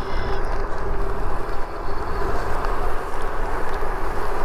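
Riding noise of an Espin Sport e-bike rolling along a paved path: wind buffeting the microphone and tyre rumble, with a steady hum under it.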